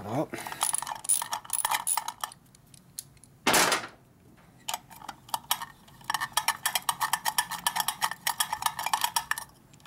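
Socket ratchet clicking in short runs, then in a fast, even run of clicks near the end, as it turns the bolts on the voltage regulator of a 1941 Harley-Davidson Knucklehead. A brief, louder rasp comes about three and a half seconds in.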